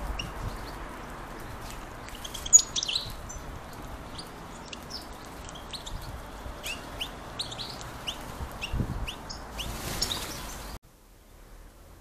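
Small songbirds chirping: short single chirps, about one or two a second, over a steady outdoor hiss, with one sharp knock about two and a half seconds in. The chirping stops abruptly near the end.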